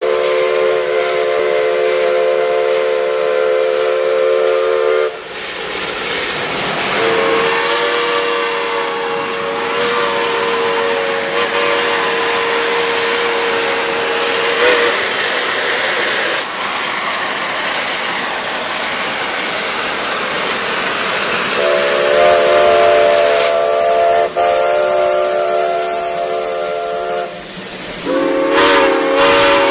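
Shay geared steam locomotives of the Yosemite Mountain Sugar Pine Railroad sounding their steam whistles: four long blasts, the longest about eight seconds and the last one lower-pitched, over a loud steady hiss of steam venting beside the track.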